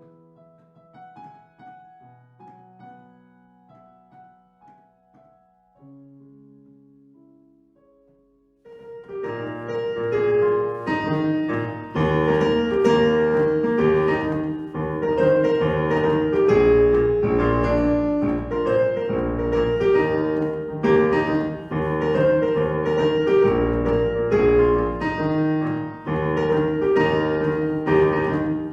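Instrumental piano music: a few soft, sparse held notes, then about nine seconds in a much louder, fuller passage starts, with a low bass pulsing under it.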